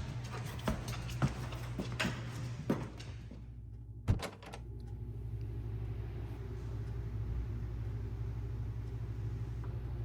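Scattered knocks and taps, then a single sharp thump like a door shutting just after four seconds in. A steady low hum follows.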